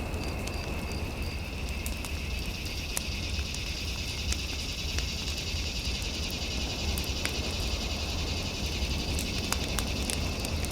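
Fireplace crackling, with sharp scattered pops over a steady low rumble. Over it run a steady high tone and a rapid high-pitched chirping trill, from about a second and a half in until near the end.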